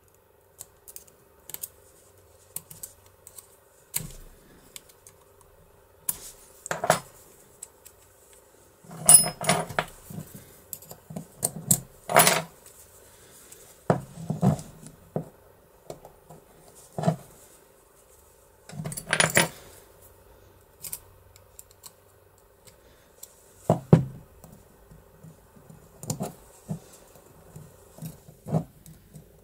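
Small metal parts of a DOM IX lock cylinder clicking and scraping as a needle file is worked against its rings and gear: irregular, scattered metallic clinks with short pauses between them.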